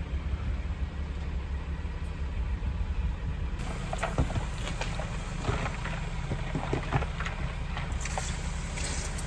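Engine of a barn-cleaning machine running steadily with a low rumble. About three and a half seconds in, rattling and scraping noise joins it.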